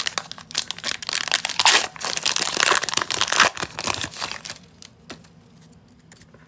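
Foil Pokémon booster pack wrapper crinkling and tearing as it is ripped open and the cards are pulled out, stopping about four and a half seconds in.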